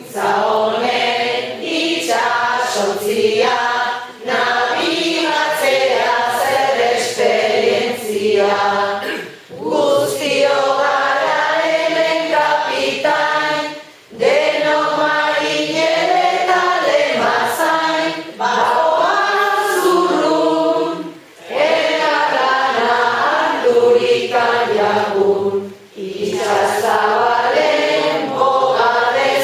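A group of voices singing koplak, humorous Basque sung verses, in phrases of four or five seconds each with short breaks for breath between them.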